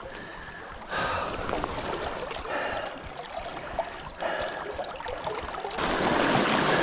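Shallow river water running and rippling over stones, growing louder near the end.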